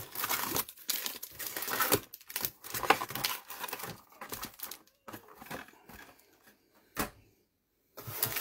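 Crinkling and tearing of a Topps Chrome trading card box's packaging, worked by hand in dense bursts for the first few seconds, then softer handling and one sharp click about seven seconds in.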